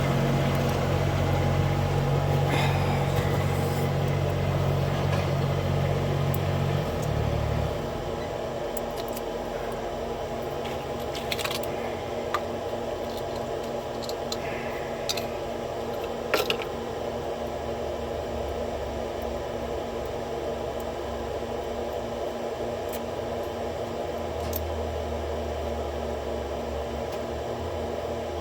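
A few small sharp clicks and taps from handling the pins and parts of a padlock cylinder during rekeying, over a steady low hum that stops about seven seconds in and comes back near the end.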